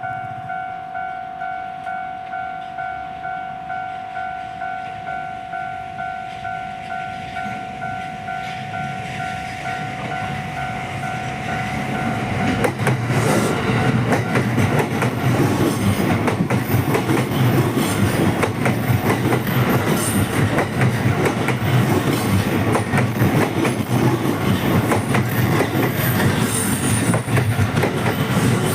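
Japanese level-crossing warning bell ringing in a steady, evenly repeating ding. About twelve seconds in, a JR Yokosuka Line electric train arrives and its loud running noise and wheel clatter over the rails take over.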